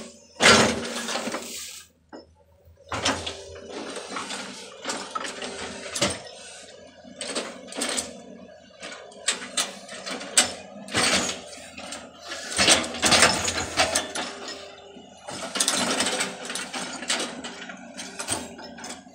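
Irregular mechanical clicking and rattling with short whirring stretches over a faint steady hum.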